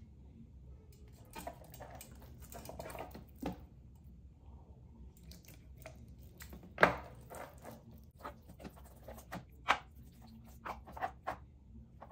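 Wet squishing and slapping of hands rubbing an oil-and-vinegar marinade into raw pork ribs in a roasting pan, with a few sharp knocks, the loudest about seven seconds in.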